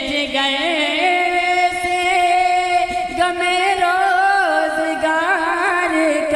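A solo male voice singing an Urdu devotional kalam (naat/manqabat style), stretching a line into long, wordless melismatic runs with held, wavering notes and ornamented turns.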